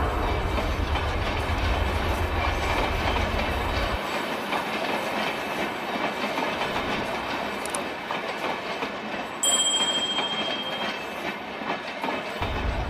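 A train running along the rails, a steady dense rumble and rattle. The deepest part of the rumble drops away after about four seconds and comes back near the end, and a short high tone sounds about two-thirds of the way through.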